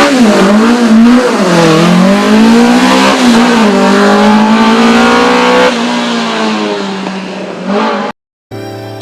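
Simca Rallye 2 rally car's engine revving, its pitch rising and falling, then dropping away and fading out about six seconds in. After a brief silence, music begins near the end.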